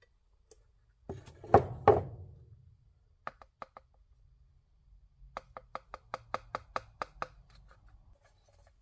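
Two knocks, then a quick even run of light, sharp taps, about five a second, from a small funnel and bottle of plastic thinner being handled and tapped over an upright tube of glazing putty.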